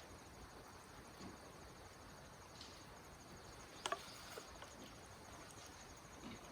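Near-silent outdoor ambience with insects trilling faintly and steadily in the background. A sharp click or snap comes about four seconds in.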